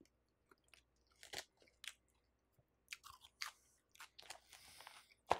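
Close-miked chewing of a mouthful of buffalo chicken salad: faint, irregular crunches of lettuce, with a sharper click near the end.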